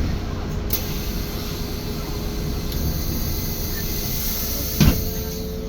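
Cabin noise of a Menarinibus Citymood 12 CNG city bus: a steady low rumble with a faint steady whine. A light click comes under a second in, and a short knock near the end is the loudest sound.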